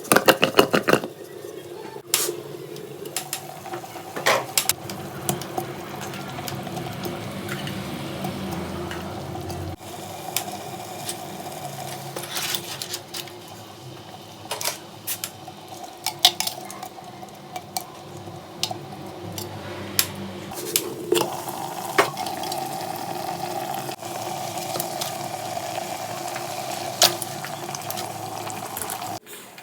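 A spoon clinking and scraping against a metal cooking pot as food is stirred, in scattered strokes over a steady hum.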